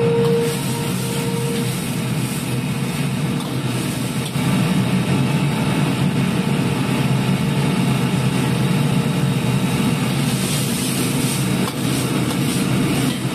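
Steady rumble of a restaurant gas wok burner under a carbon-steel wok, with snow peas sizzling in sauce. Louder sizzling and hissing come in near the end as the wok is tossed and the sauce is thickened.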